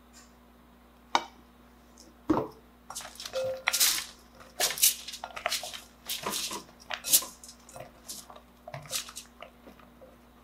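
Hands tossing oiled zucchini slices in a glass mixing bowl: a run of irregular wet slaps and scrapes of the slices against the glass. A couple of knocks come in the first few seconds, before the tossing starts.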